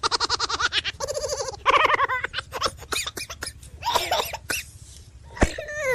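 A cat making a string of varied short calls: a rapid stuttering chatter at first, a run of sharp clicks in the middle, and a call that falls steeply in pitch near the end.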